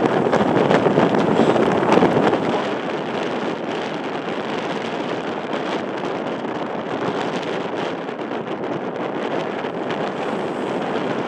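Strong wind rushing and buffeting against the microphone, a steady roar of noise that is loudest in the first two seconds or so and then eases to an even level.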